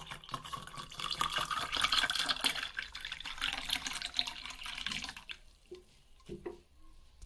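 Water pouring in a steady stream into a tall glass holding ice cubes. The pour runs for about five seconds and then stops, followed by a few soft knocks near the end.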